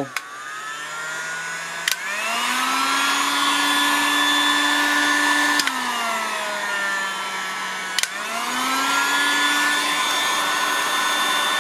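REXBETI 1800W dual-temperature heat gun running, its fan motor whirring behind a rush of air. It spins up at the start. Sharp switch clicks come about two, six and eight seconds in, and at each one the motor's pitch steps between the gun's two settings: up, then down, then up again.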